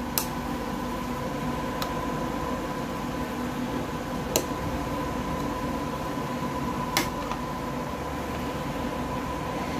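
Multimeter probe tips tapping against a circuit board, four sharp clicks spread over several seconds, over a steady electrical hum with a whining tone.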